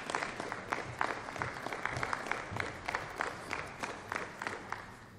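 Sparse applause from a small group of people, the separate claps distinct, dying away about five seconds in.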